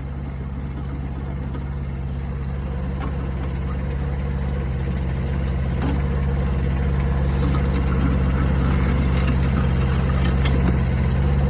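Diesel engine of a DigMaster DM200 mini excavator running steadily while it digs, growing a little louder as it goes, with a few faint knocks in the second half.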